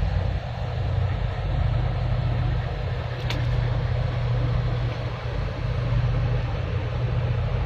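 Steady low drone of marine diesel engines with a constant rushing noise over it, as a pilot boat runs past close by. A single short click about three seconds in.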